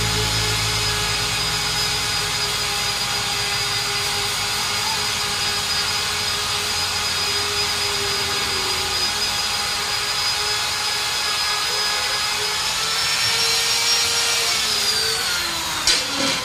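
A pneumatic buffing tool runs steadily against the rubber of a tractor inner tube, roughening it around the puncture for a patch. Near the end its pitch rises briefly and then falls as the tool spins down, followed by a sharp clack.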